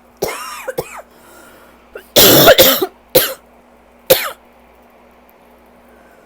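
A person's rough allergy cough, with a tight chest. A quieter cough comes right at the start, then a loud cluster of coughs about two seconds in, then two more single coughs over the next two seconds.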